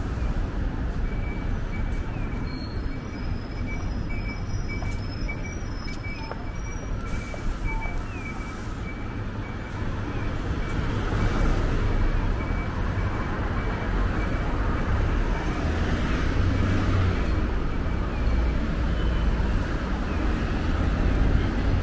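City road traffic: a steady rumble of passing vehicles, growing somewhat louder about halfway through, with a faint high pulsing tone through most of it.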